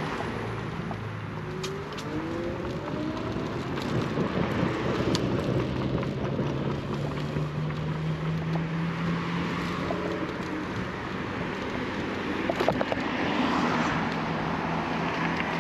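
Road and traffic noise while riding an Inmotion RS electric scooter: a steady rush with cars nearby and a low hum that rises slightly midway, plus a few light clicks.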